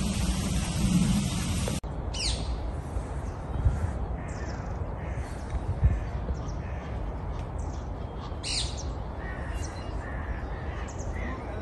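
Birds calling, with crows cawing and several sharp high calls that fall steeply in pitch, over a steady low background rumble. The first two seconds are a louder steady rush that cuts off suddenly, and two low thumps stand out in the middle.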